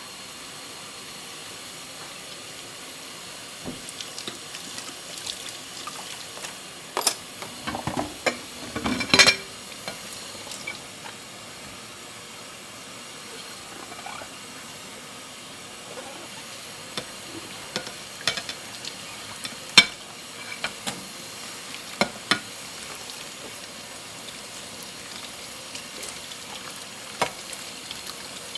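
Dishes being washed by hand at a sink: a steady low hiss, with scattered clinks and knocks of crockery. There is a cluster of them about seven to nine seconds in and a sharp one around twenty seconds.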